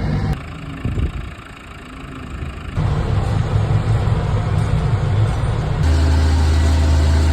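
Farm tractor engines running steadily at haymaking, in three short clips cut together, with a quieter stretch in the first clip.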